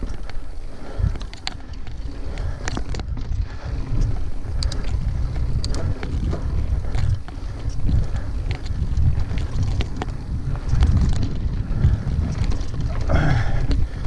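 Wind buffeting the microphone while a Yeti SB6 full-suspension mountain bike rides a dirt trail, its tyres rolling over dirt and dry leaves, with frequent knocks and rattles from the bike over bumps.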